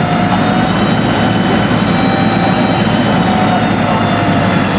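Fire apparatus engines running their pumps hard to supply hose lines: a loud, steady rumbling roar with a faint steady whine over it.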